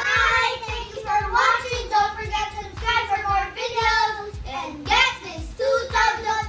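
A child singing in a high voice, phrase after phrase.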